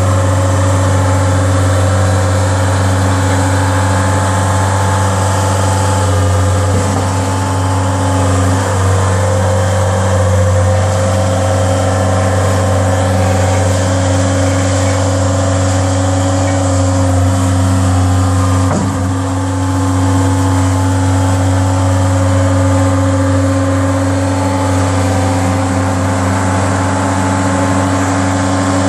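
Caterpillar CB334D tandem roller's diesel engine running steadily as the machine drives, a loud, even hum whose pitch shifts slightly now and then.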